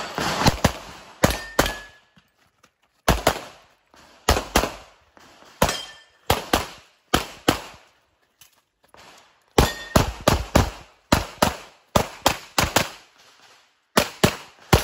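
Pistol shots fired mostly in quick pairs, about a dozen pairs with short pauses between groups as the shooter moves and reloads. Some shots are followed by a brief metallic ring from steel targets being hit.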